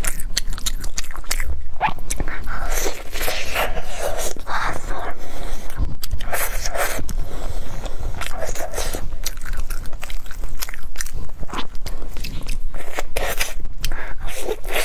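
Close-miked biting and chewing of a chewy purple glutinous rice and jujube cake: repeated irregular bites and mouth sounds.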